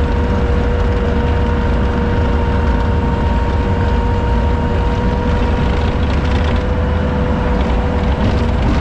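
Pickup truck running, heard from inside the cab: a steady low rumble with a steady hum above it.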